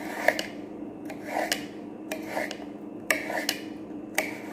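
Kitchen knife slicing through a cucumber on a plate: a rasping cut with repeated sharp clicks where the blade strikes the plate.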